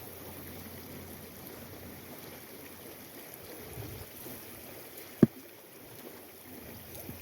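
River water running steadily, with one sharp knock about five seconds in.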